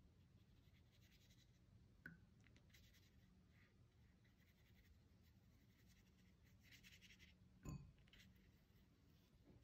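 Faint, soft strokes of a wet watercolour brush on watercolour paper, coming in a few brief patches. There is a small tap about two seconds in and a short, louder knock near eight seconds in.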